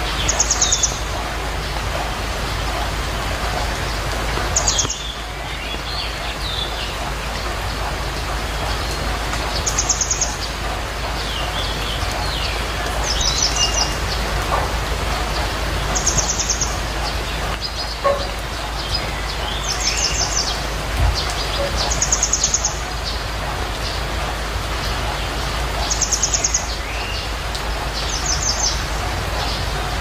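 Birds chirping over steady rain, with a short, high, trilled call repeating every few seconds, about nine times.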